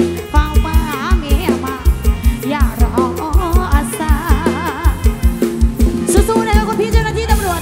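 Loud live music from a Thai rot hae procession-truck band over its sound system: a singer with wavering, ornamented lines over a fast, heavy kick-drum beat.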